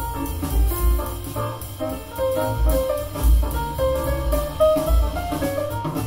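Instrumental jazz with a drum kit and a deep bass line, played back through a pair of PMC Prodigy 1 bookshelf speakers and picked up by a microphone in the room.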